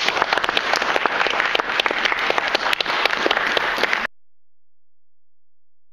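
Audience applauding, a dense run of many hands clapping that cuts off suddenly about four seconds in.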